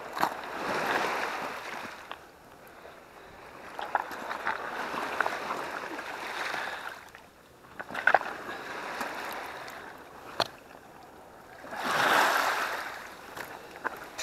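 Small waves washing up over a pebble beach, swelling and ebbing three times, with scattered sharp clicks of stones and handled fishing gear.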